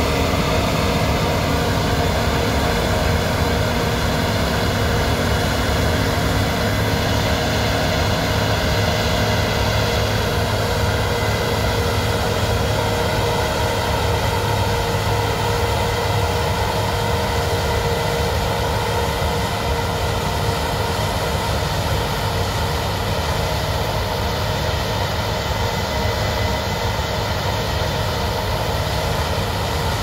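Case IH Axial-Flow combine running steadily as it harvests wheat: a constant machine hum of engine and threshing machinery with several steady tones that keep an even pitch.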